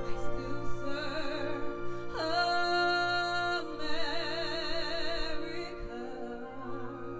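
A woman singing with vibrato over a symphony orchestra's sustained chords. She holds one long high note in the middle, and her voice stops about six seconds in while the orchestra plays on.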